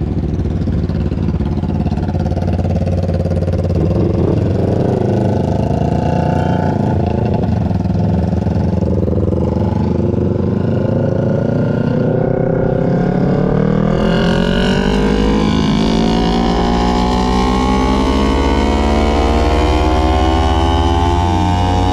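250 cc parallel-twin sport motorcycle engine running under way, its pitch wavering with small throttle changes, then rising steadily in the last third as the bike accelerates.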